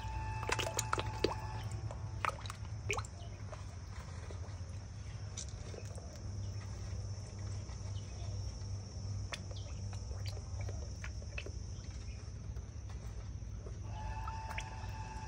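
Small splashes and pops at the pond surface as red tilapia take floating feed pellets, thinning out after the first few seconds. Under them run a steady low hum and a steady high buzz, and a held tonal call comes in near the end.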